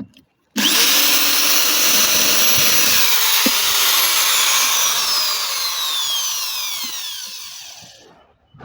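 Electric drill starts abruptly about half a second in and runs at full speed while boring out a hole with a punch used as the bit. It then winds down with a falling whine over the last few seconds.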